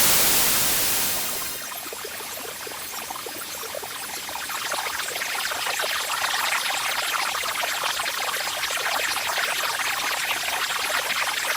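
White noise from Logic's Test Oscillator, processed by the Synaptic Resonance neural-simulation plugin. It is plain hiss for about the first second and a half, then breaks into a dense crackle of tiny ticks that slowly grows louder and brighter.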